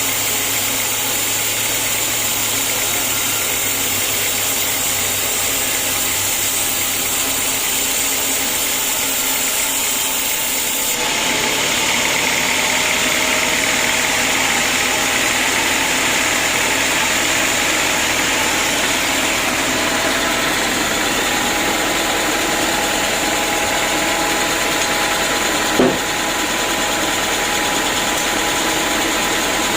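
Sawmill machinery running steadily, a constant mechanical noise with several fixed tones; the sound shifts abruptly about eleven seconds in, and a single short knock comes near the end.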